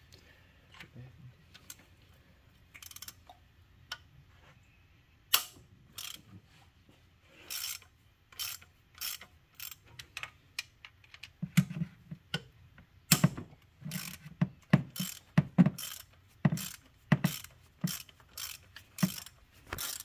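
Hand ratchet clicking as an E12 inverted-Torx socket on a long extension turns a bolt down in the engine. Scattered single clicks at first, then from about halfway a quick, regular run of ratchet strokes, roughly two a second.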